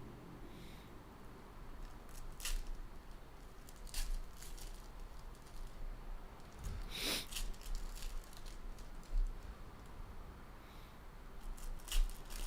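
Trading cards and foil pack wrappers being handled: scattered soft clicks and snaps, with a longer, louder crinkle about seven seconds in.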